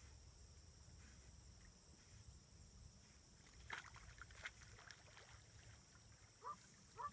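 Near silence: faint outdoor ambience with a steady high hiss, a few faint clicks in the middle, and two short faint pitched calls near the end.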